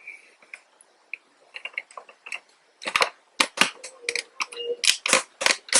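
Handling noise: an irregular run of sharp clicks and taps from hard objects being moved about, sparse and faint at first, then loud and rapid from about halfway through.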